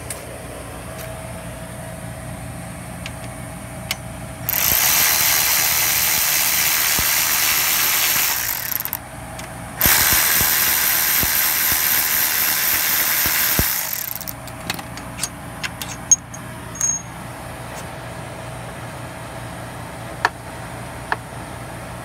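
Red cordless power ratchet spinning out a front brake caliper bolt, running in two steady spells of about four seconds each a second apart, followed by scattered clicks and clinks of the tool and socket.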